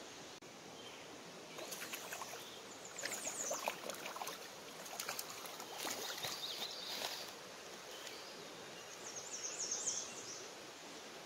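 Shallow creek water running over rocks, with irregular bursts of light splashing and crackle through the middle, and a brief high chirping near the end.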